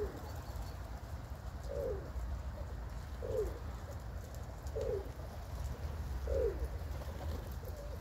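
Domestic pigeons cooing: five short, falling coos about every second and a half, over a low steady rumble.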